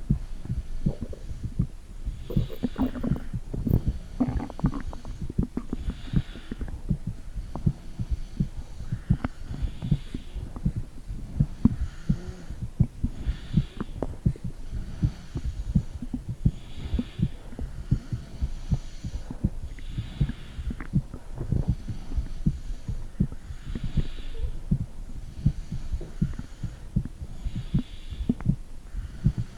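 Heartbeat picked up by a phone microphone pressed against the belly: rapid, dull low thumps one after another, with a soft hiss that returns every few seconds.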